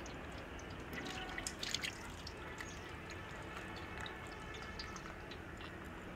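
Cooking oil pouring and dripping from a cut plastic pouch into a large, empty aluminium cooking pot. A cluster of crinkling clicks from the plastic pouch comes about a second and a half in, followed by scattered drips.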